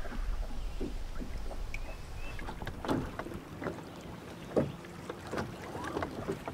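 Muffled low rumble from an underwater camera, then small waves lapping and slapping against a bass boat's hull, with scattered knocks and clicks.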